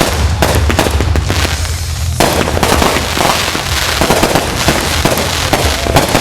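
Fireworks going off in rapid succession: dense, overlapping bangs and crackles with no break.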